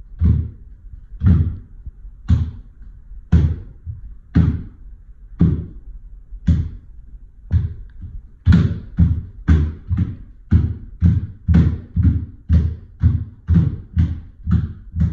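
Bare feet stamping and landing on a wooden floor in a steady beat, about once a second, then about twice a second from about halfway.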